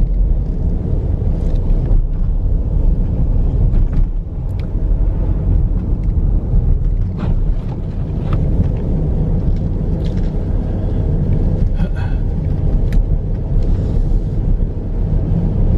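Dodge Durango R/T with its 5.7-litre HEMI V8 driving on a snow-covered road: a steady low rumble of engine and tyres.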